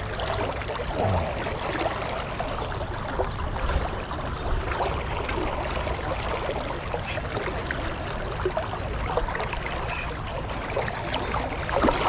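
Steady wash of river current flowing around a canoe, an even rushing and trickling of water.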